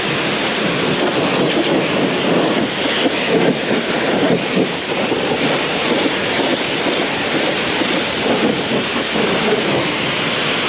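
Cold-water pressure washer jet spraying onto a tractor's metal bodywork: a loud, steady hiss and spatter of water.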